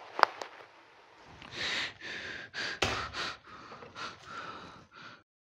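A man breathing hard in ragged, uneven gasps and sighs. A sharp click comes just after the start, and the sound cuts off abruptly near the end.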